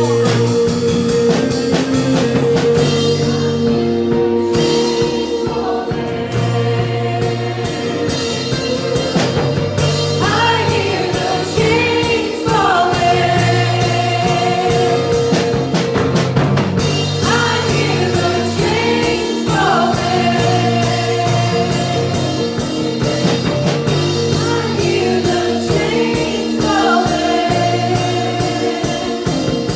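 Live church worship band playing a gospel song: singers into microphones over acoustic and electric guitar and keyboard, with a steady beat and repeated sung phrases.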